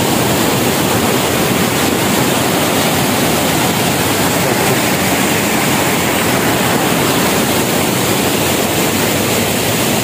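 Steady rush of stream water flowing through a stone-lined channel.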